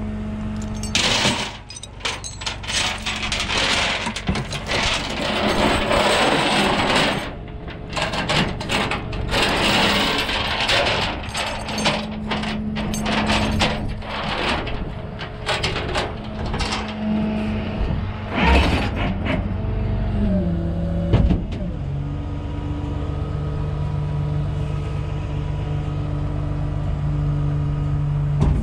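Tow truck engine running at raised idle under a long stretch of metal clanking and scraping. About 20 seconds in the engine speed drops in steps, then it runs steadily at a lower idle.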